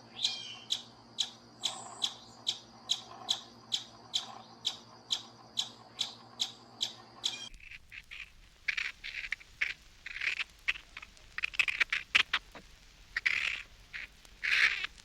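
Animal calls: a rapid run of short, sharp calls, about three a second, then an abrupt cut about halfway through to a different animal's irregular, harsher calls.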